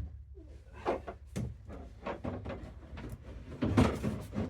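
Objects handled and knocked about, a run of irregular knocks and clatters like rummaging through drawers and tools, loudest near the end, over a steady low hum.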